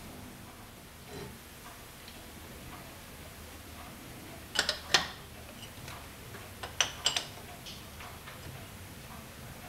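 Metal clinks from a chuck key worked in the jaws of a four-jaw lathe chuck as the chuck is turned by hand: two sharp clicks about halfway through, then a few more a couple of seconds later.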